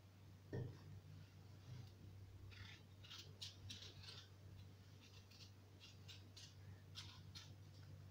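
Faint scraping of a kitchen knife paring the skin off a raw potato, in a run of short strokes. A soft knock comes about half a second in.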